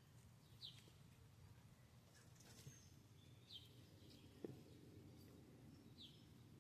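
Near silence with a bird chirping faintly: three short, high, falling chirps about three seconds apart.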